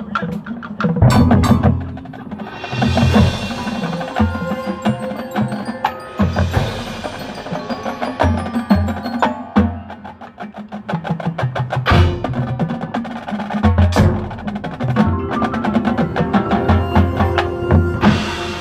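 Marching band percussion section playing a percussion feature: mallet keyboards ringing over drums, with many sharp accented hits and swelling washes of sound.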